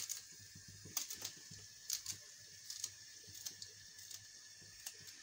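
Kitchen knife slicing a green chilli held in the hand, with a dozen or so light, crisp clicks at uneven intervals, roughly two a second, as each slice is cut through.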